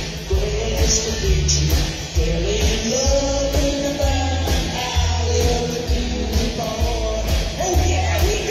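Live rockabilly band playing, with upright bass, drums and electric guitar. A steady bass pulse runs under a bending melody line.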